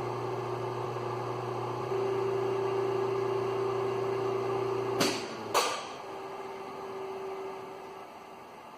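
Duplo 660 hydraulic guillotine cutter's pump motor running with a steady hum, then two sharp clicks about half a second apart as the main power switch cuts it off automatically; the hum stops and the motor winds down over a couple of seconds. This is the new main power switch's automatic shut-off working as it should.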